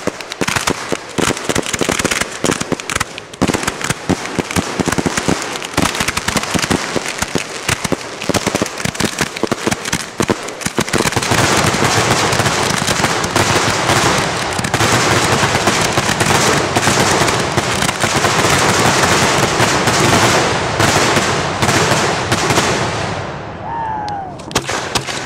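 Aerial fireworks finale heard from the firing site: a rapid barrage of shell launches and bursts. About eleven seconds in it builds into a continuous wall of bangs and crackling, then dies away near the end.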